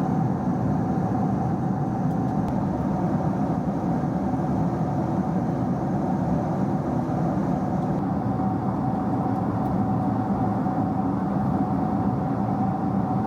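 Steady cabin noise inside a Boeing 767-300 airliner on descent: the drone of the engines and rushing airflow, with a constant mid-pitched hum running under it.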